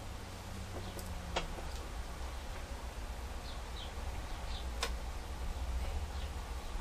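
Light clicks and ticks of a Phillips screwdriver seating a small screw in the laptop's screen mounting: three sharp clicks, at about one, one and a half and five seconds in, with fainter ticks between, over a low steady hum.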